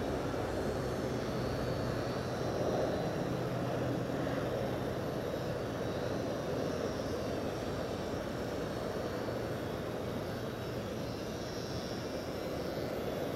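Small electric motor and propeller of a Nine Eagles radio-controlled model aircraft in flight, a faint whine that wavers in pitch, over a steady noisy rush on the microphone.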